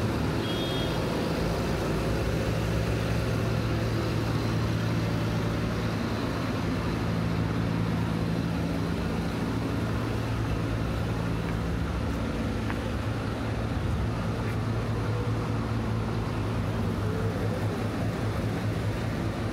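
Road traffic on a city street: a large engine's steady low hum under a haze of traffic noise, with a short high beep near the start.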